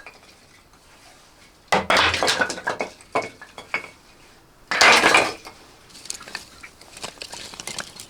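Metal cookware and utensils clinking and clattering. There is a burst of handling about two seconds in and a louder one around five seconds, with lighter clicks in between.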